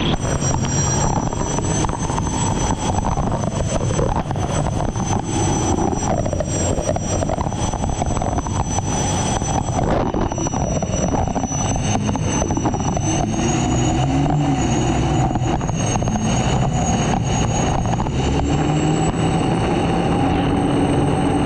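Unlimited hydroplane's turbine engine running at speed, heard onboard: a steady high whine that wavers and climbs a little near the end, over loud rushing wind and water noise with frequent brief knocks.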